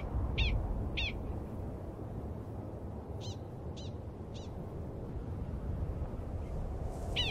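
Prairie dog barking: short, sharp barks about two a second, three near the start and three fainter ones a little past the middle, with another bout starting at the very end, over a steady low rumble.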